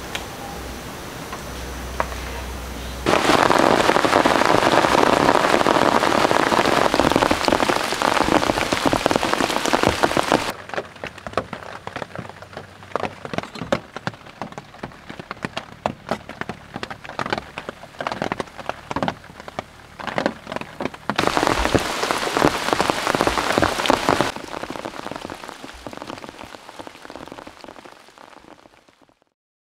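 Heavy rain falling and pattering on a surface. It comes in dense, loud stretches, with a spell in between of sparser, separate drops, and fades out near the end.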